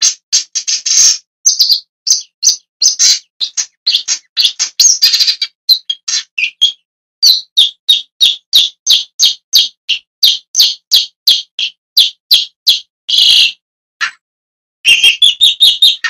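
Long-tailed shrike calling: a long series of short high notes, two to three a second, with a quicker run of notes near the end.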